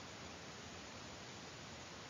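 Faint, steady hiss of the recording's background noise (room tone) in a pause of the voice-over, with no distinct sound in it.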